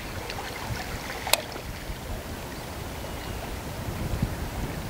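Outdoor harbour ambience: a steady low rumble of wind and water lapping at the quay edge, with one sharp click about a second in.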